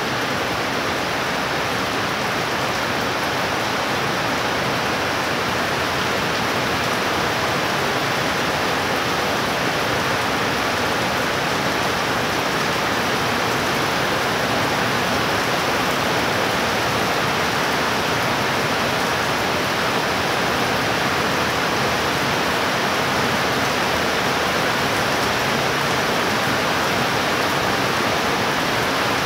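Heavy rain pouring down in a steady, dense hiss, getting slightly louder as it goes on.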